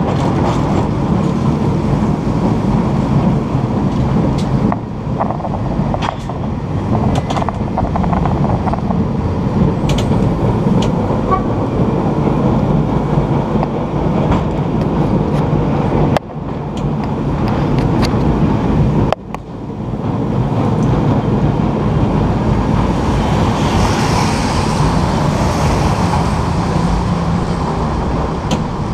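San Francisco cable car running on its rails: a steady rumble and hum, with frequent sharp clicks and clacks over the track. The sound drops off suddenly twice a little past the middle.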